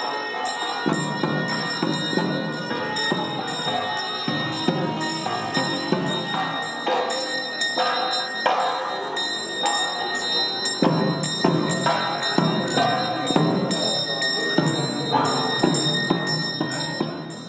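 Hindu temple procession music with a bell ringing in quick repeated strokes, announcing a deity carried in procession.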